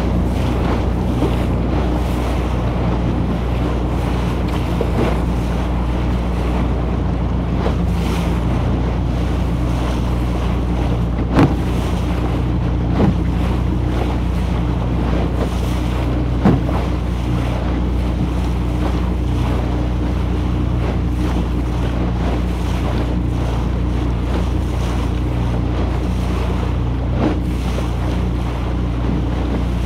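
A wooden motorboat's engine runs steadily at cruising speed under the rush of water along the hull and wind on the microphone. There are a few sharp knocks as the bow meets the chop, the loudest about a third of the way in.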